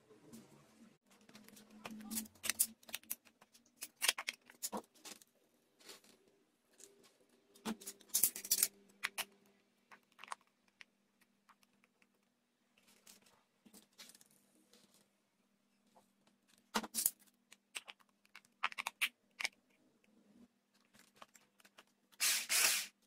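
Hands handling a toy train made of aluminium drink cans, cardboard matchboxes and plastic toy wheels: scattered light clicks, taps and scrapes, with one louder scraping rustle of about half a second near the end, over a faint steady hum.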